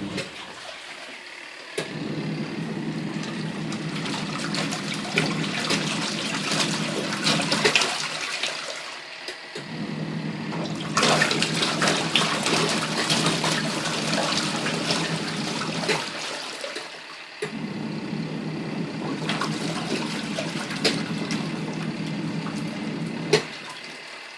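Twin tub washing machine's wash tub agitator churning water and laundry with a motor hum. It stops briefly about every seven seconds, the forward-pause-reverse cycle of a twin tub wash action.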